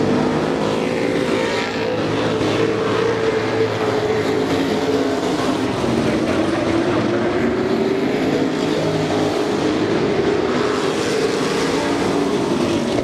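Several Super Pro Truck race engines running together at speed. The engine pitch wavers and overlaps as the trucks pass close by.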